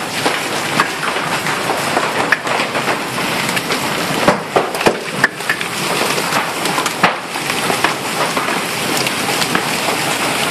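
Heavy hail falling hard, a dense steady clatter with many sharp knocks of large hailstones, some a little more than golf-ball size, striking the roof and hard surfaces. The loudest hits come a little past the middle.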